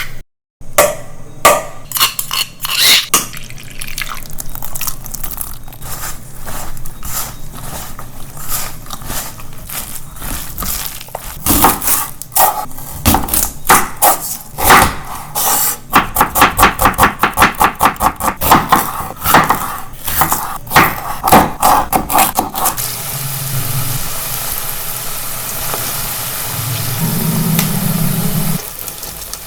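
Kitchen utensils clattering and knocking against dishes, with a fast run of regular knocks, about three a second, in the middle. About two-thirds of the way in, food starts sizzling in a hot pan and keeps on steadily.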